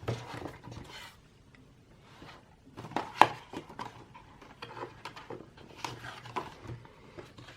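Light rustling, taps and clicks from a K-pop album and its packaging being handled and opened, with one sharper click about three seconds in.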